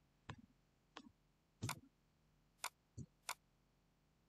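Computer mouse clicks: six short, sharp clicks at irregular intervals, some with a dull knock beneath them.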